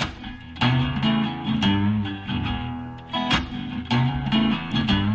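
Intro music: guitar chords strummed about once a second over held low notes.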